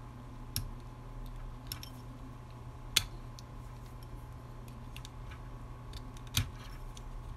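A small screwdriver clicking and scraping against the button-cell batteries and plastic housing of a keychain flashlight as the cells are pried at. There are a few scattered sharp clicks, the loudest about three seconds in and another near the end, over a faint steady hum.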